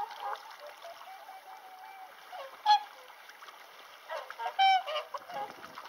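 Whooper swans calling from the water: soft honks throughout, with a loud short call about three seconds in and a longer, louder honking call about four and a half seconds in.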